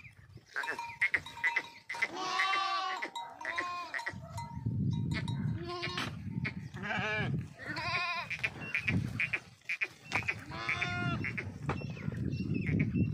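Goats in a herd bleating, one after another, with wavering calls, five or six over the stretch.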